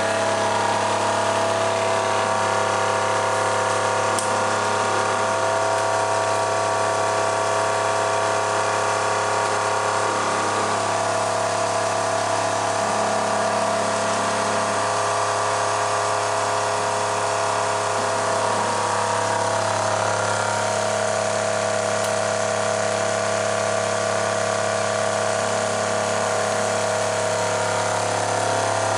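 Electric drive motor spinning a chrome automotive alternator on a bench test rig. It runs steadily, with a low hum under a whine of several steady tones.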